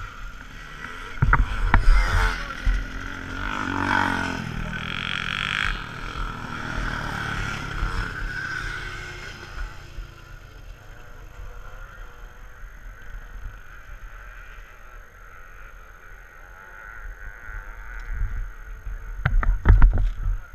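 Motorcycle engines running and revving at a distance, one rising and falling about four seconds in. There are sharp knocks close to the microphone a second or two in and again near the end.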